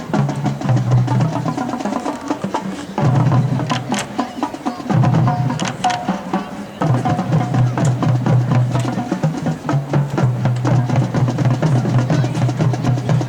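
Marching band drumline playing a cadence of rapid, continuous drum strokes.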